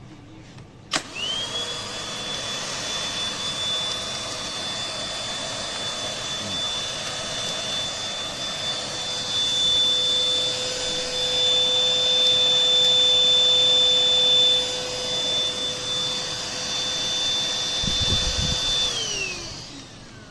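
Rowenta XPert 6.60 cordless stick vacuum switched on about a second in, its motor spinning up at once to a steady high whine over the rush of air. It runs on, louder for a few seconds in the middle, then is switched off near the end, the whine falling in pitch as the motor winds down.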